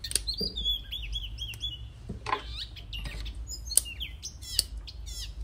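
Fresh string beans snapped by hand into pieces: several sharp, crisp snaps a second or so apart, the loudest a little before the four-second mark. Birds chirp steadily in the background.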